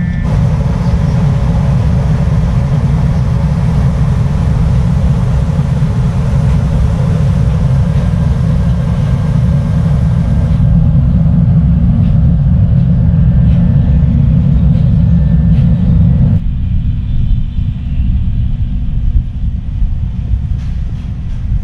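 Loud, steady low rumble aboard a ferry near its berth: wind buffeting the microphone over the ship's engine noise. The sound changes abruptly twice, losing its hiss about halfway through and thinning again a few seconds later.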